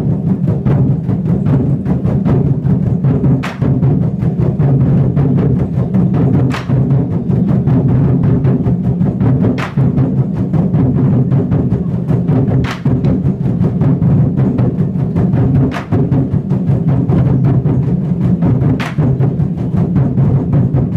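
Drum troupe drumming in a dense, continuous low roll, with a sharp accent stroke about every three seconds.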